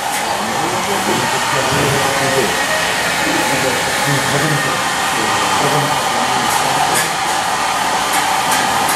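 Steady, loud rushing of air from a fan or blower-type machine, with faint voices talking underneath.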